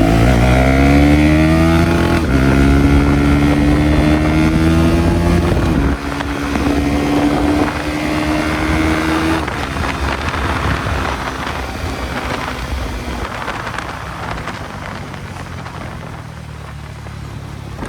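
KTM Duke 250 Gen 3's single-cylinder engine under hard acceleration: its pitch climbs, dips briefly at about two seconds as it changes gear, and climbs again. About six seconds in it drops and holds a steady note, then fades under wind noise on the microphone as the throttle eases.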